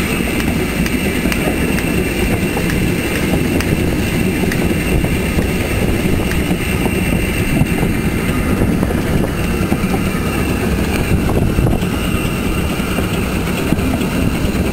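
Metre-gauge museum steam train running uphill, heard from the open platform just behind the locomotive: a loud, steady rumble of the locomotive and wheels on the track, with a steady high-pitched tone over it.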